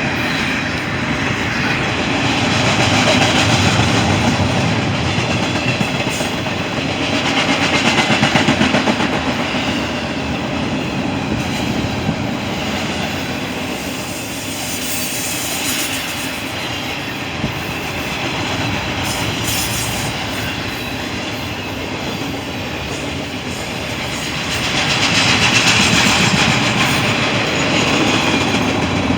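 Freight train rolling past, its wheels clicking and clacking over the rail joints, the noise swelling and easing several times as cars go by.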